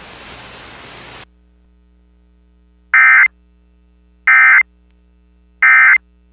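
Emergency Alert System end-of-message signal: three short, loud bursts of digital data screech, about a second apart, marking the end of the warning broadcast. Before them, about a second of radio static cuts off suddenly, leaving a faint hum.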